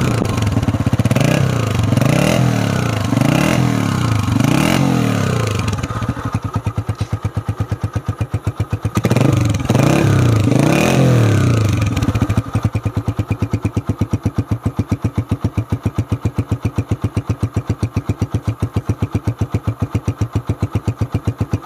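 Honda CG 125's single-cylinder four-stroke engine running through its stock matte-black silencer: revved in about five quick blips, then dropping to idle, revved twice more about halfway through, then idling steadily with an even exhaust beat.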